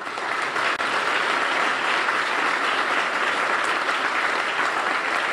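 Audience applauding steadily, dense even clapping.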